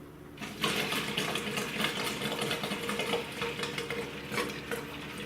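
Small water-cooling pump in a PC liquid-cooling loop switching on and running with a steady hum, coolant and air gurgling and crackling through it as the loop is drained.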